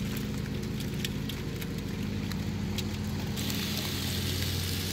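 Live crawfish clicking and rustling against each other in an aluminium strainer basket, over a steady low mechanical hum. About three and a half seconds in the clicking gives way to a brighter hiss.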